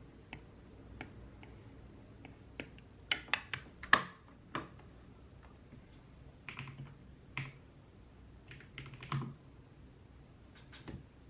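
Computer keyboard typing in irregular, sparse keystrokes, with a quick run of several louder keys about four seconds in.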